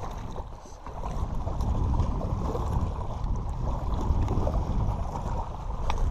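Wind buffeting the microphone in a steady low rumble, with small waves lapping at a rocky shoreline.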